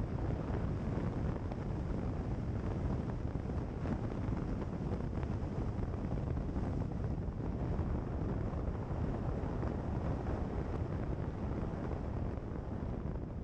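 A car driving along a gravel road: steady wind noise on the microphone over the low noise of tyres on gravel.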